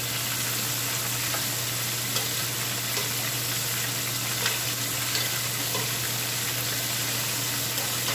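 Chicken breast deep-frying in hot oil in an electric deep fryer: a steady sizzle, with a few light clicks of a metal utensil against a stainless pan.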